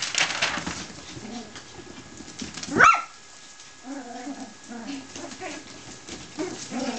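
Seven-week-old puppies play-fighting, their claws scrabbling on a vinyl floor, with one sharp, high yelp about three seconds in, the loudest sound. A run of short, low puppy whines and grunts follows.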